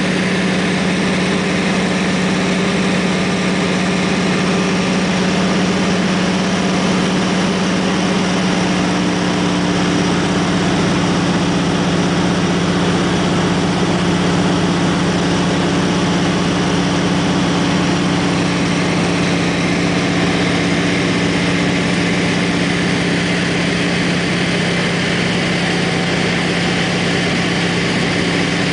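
Floatplane engine and propeller running steadily in cruise, heard from inside the cabin as a constant-pitched drone.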